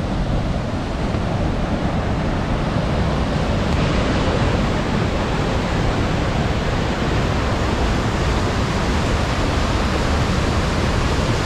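Steady rushing roar of St. Mary Falls and its creek, a continuous unbroken wash of falling water.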